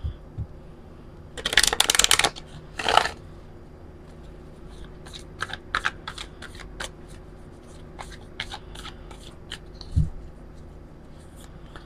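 A deck of oracle cards being shuffled by hand: a fast burst of flicking cards about a second and a half in, another short burst near three seconds, then scattered single card clicks, and a low thump near the end.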